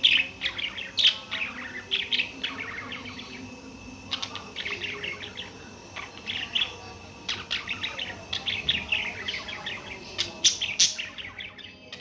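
Budgerigars chirping and warbling: bursts of rapid, short chirps broken by brief pauses, with a few sharper, louder notes near the end.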